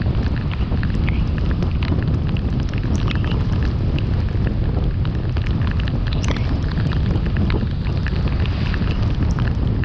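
Steady low rumble of a car driving on a wet road, with scattered faint ticks through it.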